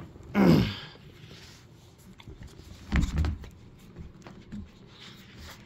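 Dog playing with a rope toy: scuffling and light clicks, with a short falling vocal sound near the start and a heavier thump about three seconds in.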